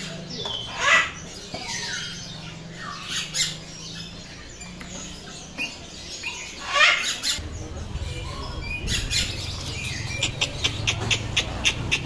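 Parrot squawking and whistling: a few loud calls that slide down in pitch, spread through the first seven seconds. Near the end comes a quick run of sharp clicks, about three to four a second.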